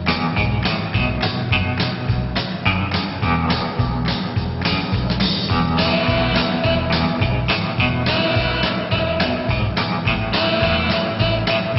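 Rock music with electric guitar and a steady drum beat; a sustained guitar note enters about six seconds in.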